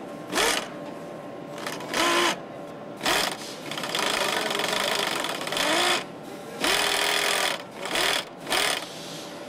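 Power nut runners tightening bolts on a motorcycle assembly line, in a series of short whirring bursts with one longer run of about two seconds in the middle. Each burst carries a faint whine that rises and falls as the tool spins up and down, over a steady factory hum.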